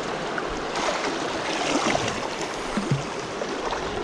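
Sea water washing and gurgling around shoreline rocks in a steady wash, with a few small gurgles through the middle, as swell comes in over the rocks.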